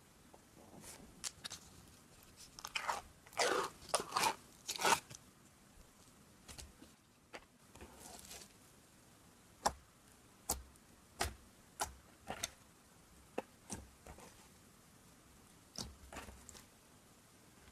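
Red glitter slime being handled with the fingertips: a run of wet crackles about three to five seconds in, then single short sharp clicks about once a second as fingers poke and press it.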